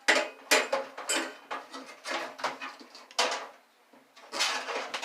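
Metal parts clanking and rattling against a microwave oven's sheet-metal chassis as they are handled and pulled during disassembly: about nine sharp knocks and scrapes at an uneven pace, with a short lull near the end.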